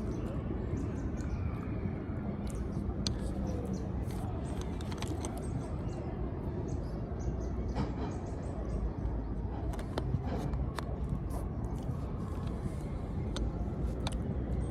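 Steady low rumble of outdoor background noise, with scattered small clicks and taps throughout.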